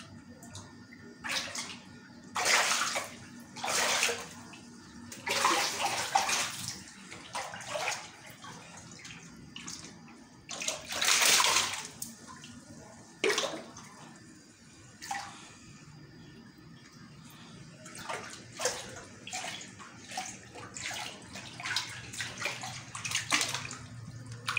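Water splashing in a small concrete fish pond, in repeated irregular bursts. Near the end the splashes come short and close together as a fish thrashes at the surface.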